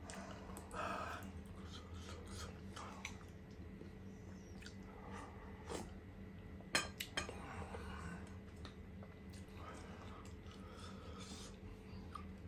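Close-up eating sounds: slurping crab and corn soup from a ceramic bowl and chewing, with wet mouth clicks. Two sharp clicks about seven seconds in are the loudest.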